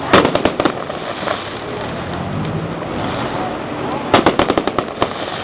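Fireworks going off: a quick run of crackling bangs just after the start, then another run about four seconds in.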